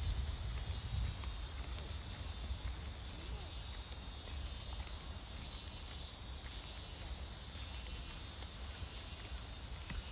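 Insects chirring in a steady high band that swells and fades about once a second, over a low rumble.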